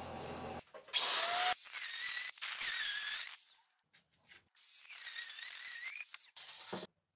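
A handheld electric power tool running in two bursts of a few seconds each, its motor whine wavering up and down in pitch, with a short break between them; it cuts off shortly before the end.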